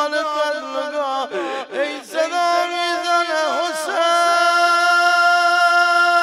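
A man's voice chanting a Muharram mourning lament for Karbala, with a wavering, ornamented melody that settles into one long held note about four seconds in.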